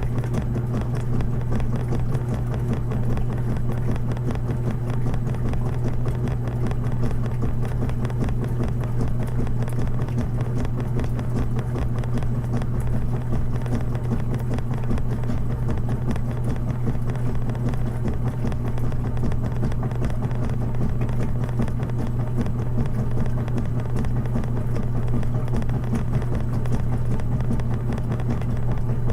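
Washing machine running with a steady low hum and a fine, even rattle over it.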